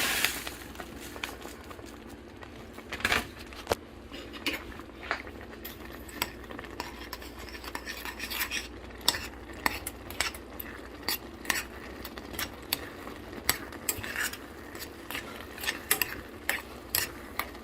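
Spoon clinking and scraping against a pot as a mixture is stirred, in irregular clicks about one or two a second, over a low steady hum.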